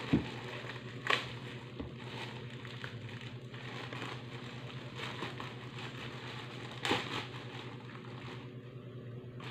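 Light handling sounds of lumpia being filled and rolled: a hand and spoon working meat filling in a steel pot and on a plastic rolling gadget, with rustling and two sharp knocks, about a second in and near seven seconds, over a steady low hum.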